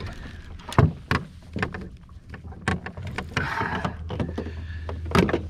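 Sharp knocks and thumps against a fishing boat, several of them spread out, with a steady low hum that comes in about three seconds in.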